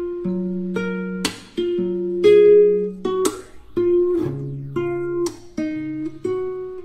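Background music: a plucked acoustic guitar tune with held notes and a sharp strummed chord about every two seconds.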